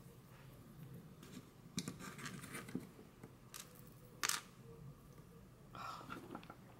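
Faint, scattered clicks and light scrapes of small plastic star sequins being picked up and shifted on a wooden tabletop, the sharpest click a little past the middle and a short cluster near the end.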